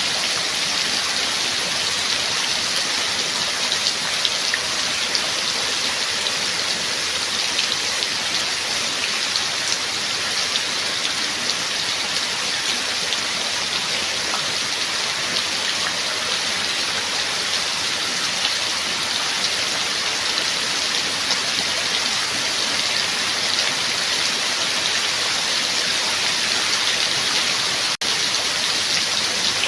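Steady rain falling, a dense even hiss of drops with scattered sharper drop ticks. The sound cuts out for an instant near the end.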